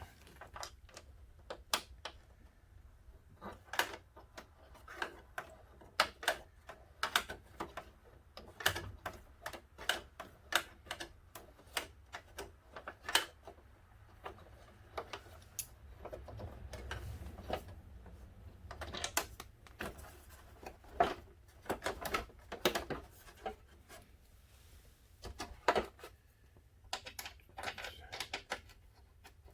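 Irregular clicks and knocks of hand tools on bolts and plastic fairing panels as a sport bike's fairing is unbolted.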